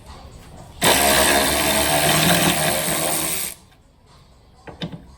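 A power tool runs in one burst of nearly three seconds, starting about a second in and cutting off abruptly.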